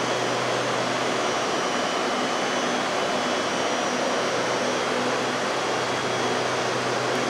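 Electric commuter train standing at the platform, its air-conditioning and auxiliary equipment giving a steady whir with a faint constant hum.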